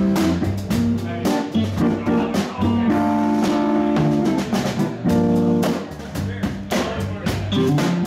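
Live band playing: electric guitar notes over a drum kit keeping a steady beat.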